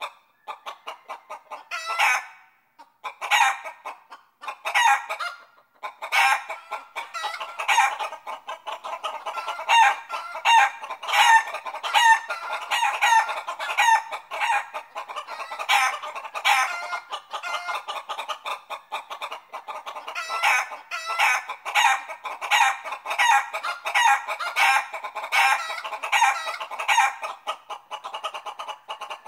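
Chickens clucking in a rapid, continuous series of short calls, with two brief pauses within the first six seconds.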